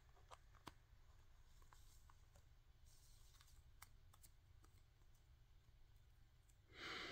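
Near silence with a few faint ticks of a trading card being worked into a clear plastic sleeve by hand, and a brief soft hiss near the end.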